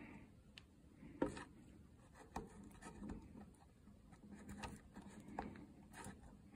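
Faint, scattered light clicks and rubbing as fingers and a thin metal tool work the intake gasket off a black plastic Ram EcoDiesel intake manifold.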